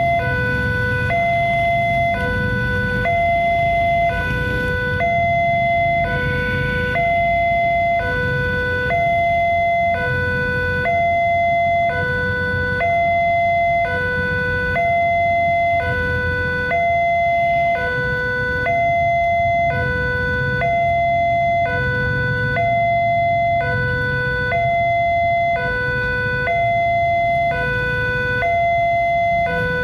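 Railway level-crossing warning alarm of the "Alarm Indonesia" type sounding a steady two-tone hi-lo pattern, a higher and a lower tone alternating about once a second each, over a low rumble. The alarm signals that the crossing is closed with the barrier down for an approaching train.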